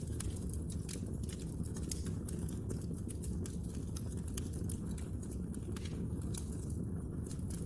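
Wood logs burning in a fireplace, crackling and popping in many quick, irregular snaps over a low, steady rumble of the fire.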